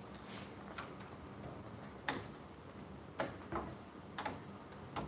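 Pen tapping and writing on paper on a desk: a handful of short, light taps at irregular intervals over a faint steady room hum.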